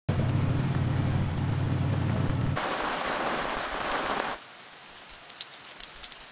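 Heavy rain falling, with a low rumble underneath for the first two and a half seconds. At about four and a half seconds it drops to a quieter hiss with light scattered ticks.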